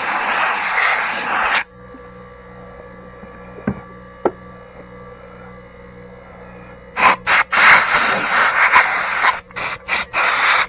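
Compressed-air blowgun blasting debris off a chainsaw: one long hiss cuts off about a second and a half in. After a quiet stretch with a faint steady hum and two clicks, a run of short on-off blasts follows near the end.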